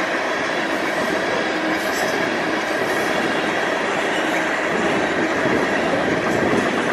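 Norfolk Southern covered hopper cars of a freight train rolling past: a steady noise of steel wheels running on the rails.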